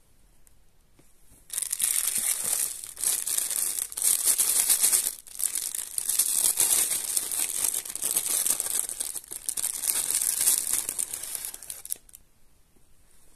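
Thin clear plastic wrapping crinkling loudly as it is handled and pulled off a packaged item, starting about a second and a half in and stopping near the end, with a brief pause about five seconds in.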